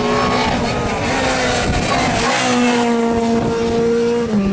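Small hatchback race car's engine running hard as the car passes and climbs away up a hill-climb course. The engine note shifts in pitch a couple of times and drops sharply near the end.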